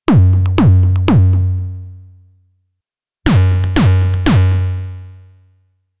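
Synthesized kick drum sequence from the UVI Sunbox library (sampled from the SunSyn synthesizer): three deep kicks about half a second apart, each with a fast downward pitch drop and a long low boom. After a short pause the same three-kick pattern plays again and fades out.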